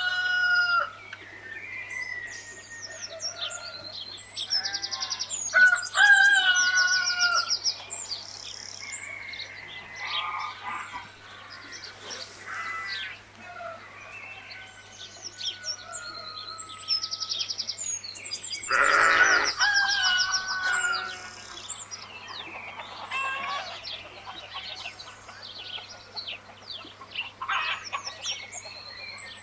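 Farmyard birds calling: chickens clucking and a rooster crowing, mixed with small birds chirping in fast trills. The calls come one after another, with a louder burst of calling about two-thirds of the way through.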